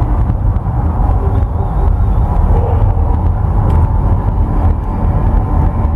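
A deep, steady rumble from the Mirage volcano show's eruption effects, with faint musical tones over it.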